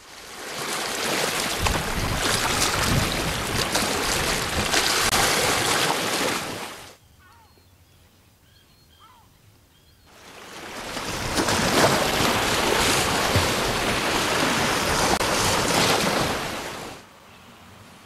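Lake waves surging in, twice, each a long rushing wash that swells up, holds for several seconds and then falls away. In the lull between them there are a few faint short chirps.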